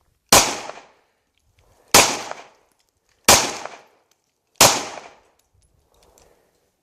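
Four single shots from a Glock pistol, each a sharp crack with a short fading tail, spaced about one and a half seconds apart.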